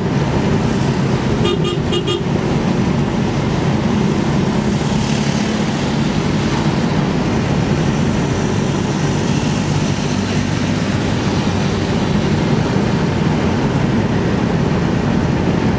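Steady road and engine noise of a car at highway speed, heard from inside the cabin, with three quick horn toots about a second and a half in.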